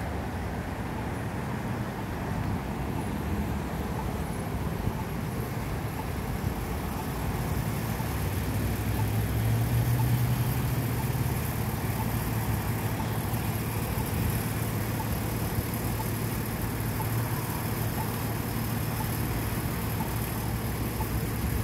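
Road traffic at an intersection: cars idling and driving past, engines and tyres. A low engine hum swells louder about ten seconds in as a vehicle passes close by.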